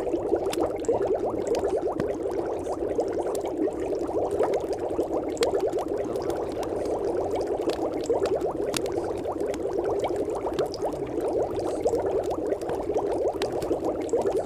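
Steady bubbling, water-like background noise, a dense, even patter of fine crackles kept to a narrow middle band without change.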